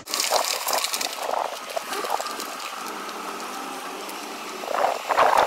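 A car towing a loaded boat trailer across gravel, with the tyres crunching over the stones in a run of small crackles that grows louder near the end.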